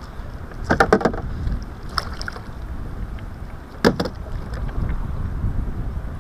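Wind rumbling on the microphone, with a few sharp knocks in a kayak: a quick cluster about a second in, a single one at two seconds, and a louder one near four seconds.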